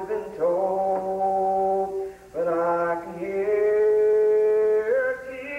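A man singing a gospel song unaccompanied, drawing out long held notes with slow slides between pitches. There is a brief pause about two seconds in.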